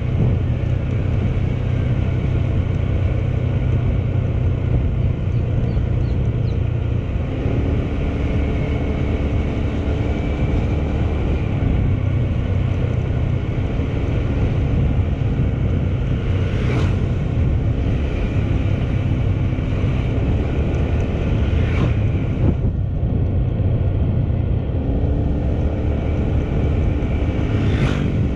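Motorcycle engine running on the move, heard from a GoPro mounted on the bike over a steady low rumble of wind and road noise. The engine's note rises and falls a few times.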